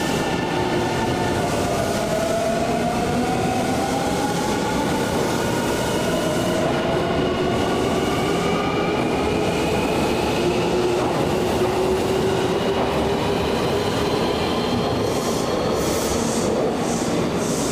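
Nankai 8000-series electric commuter train pulling past along the platform, its motor whine rising slowly in pitch as it gathers speed, over a steady rumble of wheels on rail.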